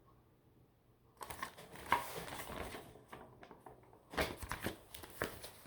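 Two stretches of rustling, crinkling noise: one starting about a second in and lasting nearly two seconds, a second one around four seconds in.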